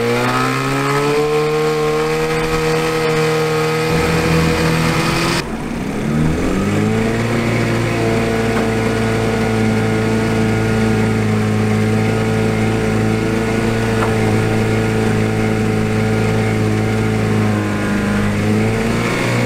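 Mercury tiller outboard motor running under way, climbing in pitch as it throttles up and then holding a steady drone. About five seconds in the sound changes abruptly, then the engine climbs in pitch again and runs steadily.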